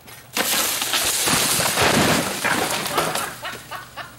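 Rotting dead tree trunk snapping and its top crashing down. A sudden loud crack and rush of breaking wood and branches starts about half a second in. It trails off into scattered cracks and knocks over the next three seconds.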